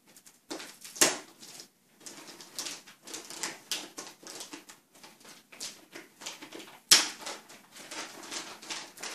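Clear plastic wrapping around a NAS unit crinkling and rustling as hands rub and handle it, in many short crackles, with two sharp louder clicks, about a second in and near seven seconds.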